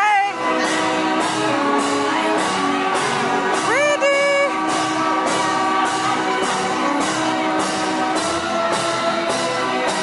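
Music with a singing voice and a steady beat of about two strokes a second.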